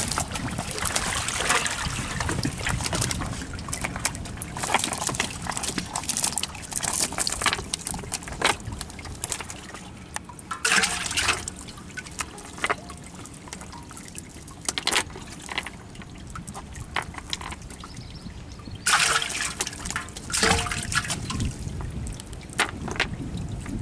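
Water splashing and trickling in irregular bursts, with louder splashes about eleven and nineteen seconds in.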